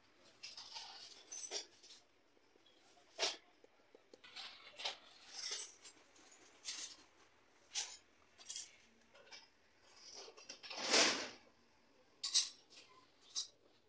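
Plastic repair work on a car air filter box: scattered scrapes, clicks and rustles as a heated iron rod is worked over the plastic and a plastic filler strip is pressed into the crack. A louder scraping rush lasts about a second near the end, followed by a few sharp clicks.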